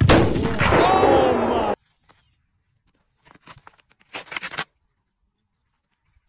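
A loud, raised human voice for just under two seconds that cuts off suddenly. After a pause comes a short run of scratchy clicks.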